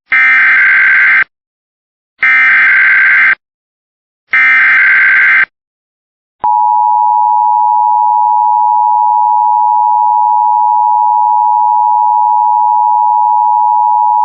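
Emergency Alert System header: three identical bursts of screeching SAME digital data, each just over a second long with about a second of silence between them, then about six and a half seconds in the steady two-tone EAS attention signal starts and holds.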